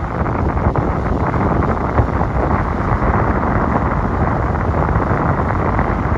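Steady wind buffeting the microphone aboard a boat on open water, a dull rumbling rush with no clear engine note.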